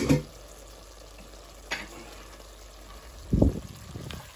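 Cauliflower and spice curry sizzling softly in a stainless steel pot, with a sharp click at the start and a wooden spoon knocking and scraping against the pot as it is stirred a little after three seconds in.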